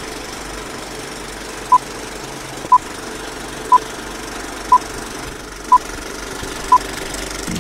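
Countdown-leader beeps: a short, mid-high beep once every second, six in all, over the steady clatter of an old film projector, as in a vintage film countdown intro.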